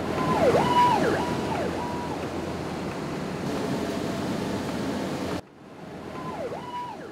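Emergency vehicle siren: a held tone that dips sharply and climbs back again and again, over a steady hiss that drops away sharply about five seconds in, with the siren coming back fainter near the end.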